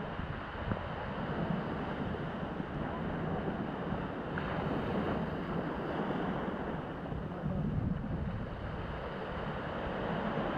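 Sea surf washing onto the beach, mixed with wind buffeting the microphone: a steady rushing noise that swells and eases every few seconds.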